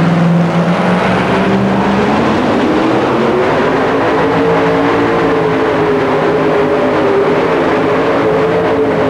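Supercharged engine of a super modified two-wheel-drive pulling truck running flat out under full load as it drags a weight-transfer sled. The loud engine note holds nearly steady, wavering only slightly in pitch.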